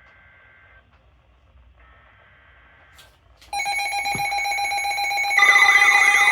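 Emergency Alert System data bursts, the buzzy header of a tornado warning, twice and faint, then about three and a half seconds in a loud electronic alarm tone starts. About two seconds later a warbling, siren-like tone joins it.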